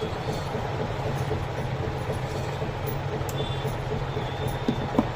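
Steady rumble and hiss of a moving vehicle, likely a train or bus, with two short knocks near the end.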